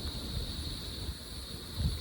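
Wind rumbling on the microphone in uneven gusts over a steady, high-pitched insect drone.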